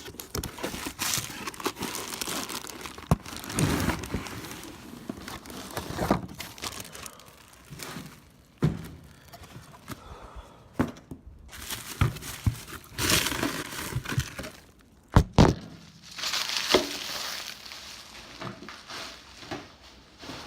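Packaging being torn open and crinkled while parts are unpacked by hand, with scattered knocks and clacks, and two heavy thuds close together about 15 seconds in.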